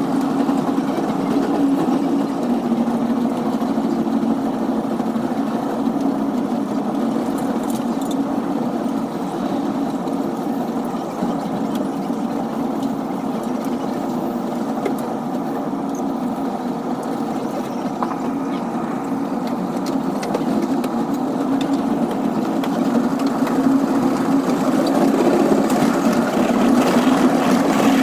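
Caltrain bilevel gallery commuter train running along the track, heard from inside the leading cab car: a steady rumble of wheels and running gear that grows louder near the end.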